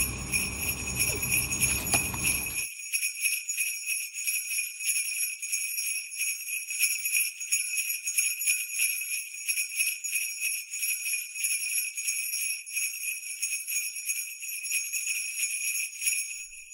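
Jingle bells shaken in a fast, steady jingle that stops near the end.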